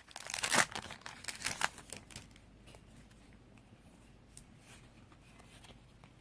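Foil Yu-Gi-Oh booster pack wrapper being torn open and crinkled for about two seconds, then only a few faint ticks.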